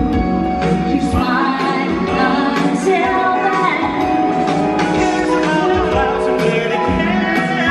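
Live country band playing an upbeat song with fiddle and guitars, with singing over a steady beat.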